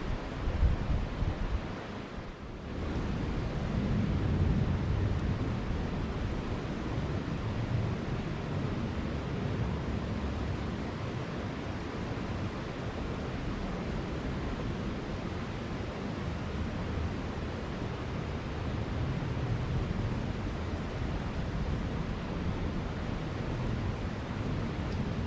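Steady rushing of a flowing mountain stream, with a brief dip about two seconds in.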